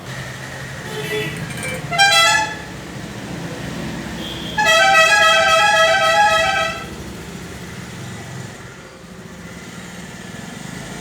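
Two vehicle horn blasts over a steady low traffic rumble: a short honk about two seconds in, then a longer, wavering honk of about two seconds.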